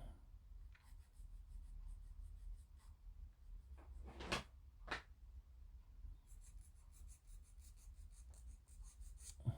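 Small plastic model-kit parts being handled at a workbench: faint taps and two sharper clicks, then a fast, light scratching or rubbing for the last few seconds.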